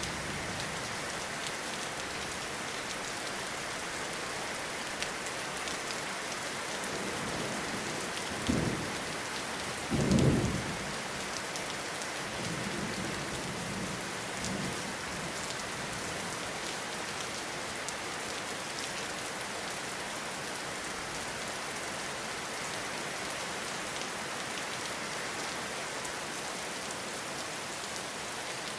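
Steady rain falling, an even hiss of drops. About eight and ten seconds in come two short, low rumbles, the second longer and louder, then a few fainter low swells.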